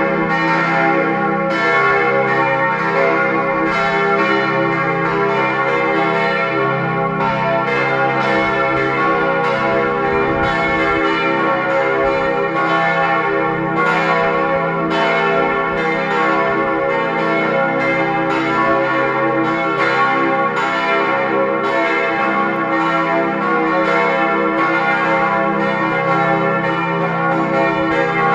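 Several church tower bells ringing together in a full peal, their strikes overlapping and each tone ringing on under the next.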